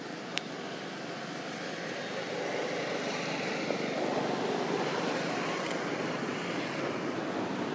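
Steady outdoor rushing noise that swells a little about two to three seconds in, with one sharp click near the start.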